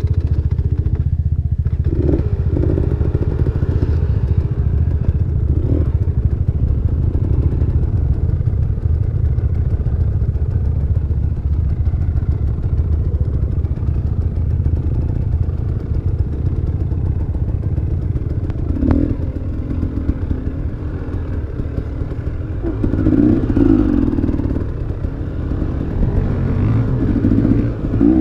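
Enduro motorcycle engine running steadily at low revs, with a few short knocks over the course of it.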